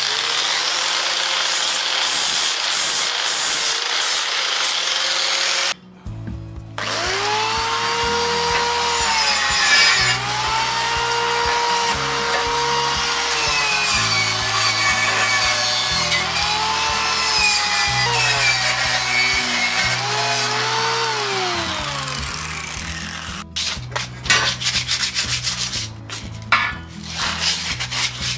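An electric angle grinder grinding a steel tube for about six seconds, then stopping. A grinder motor then runs with its whine sagging and recovering each time the chrome tube rack is pressed against the wheel, and spins down a little after twenty seconds. Near the end come short, irregular strokes of hand sanding on the tube.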